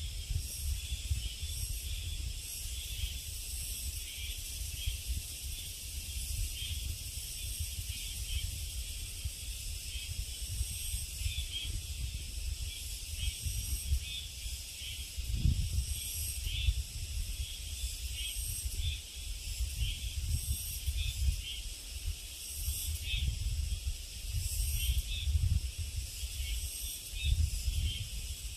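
A chorus of summer insects making a steady, shrill, high buzz that pulses unevenly, over a low fluctuating rumble.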